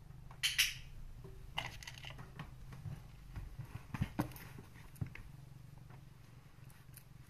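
Handling sounds: a sharp double click about half a second in, then a fleece blanket rustling and a few soft knocks on the countertop as the blanket is lifted off the box and the cat moves.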